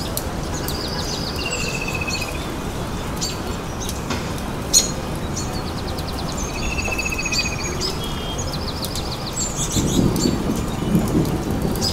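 Birdsong: high chirps and a short descending trill, the same phrase recurring about every six seconds, over a steady hiss. Near the end, hot oil with ginger-garlic paste in it starts sizzling, a louder low crackle.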